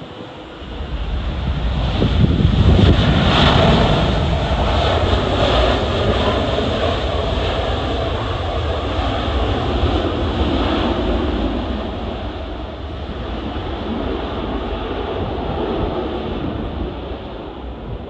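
Jet airliner's engines passing close by, swelling about two seconds in and then holding loud before slowly easing, with gusty wind buffeting the microphone throughout.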